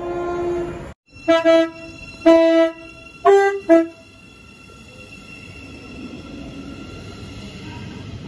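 Horn of a Class 717 electric multiple unit: a held note that cuts off about a second in, then four short blasts in quick succession. The train then runs past with a steady rush of wheels and motors that grows louder.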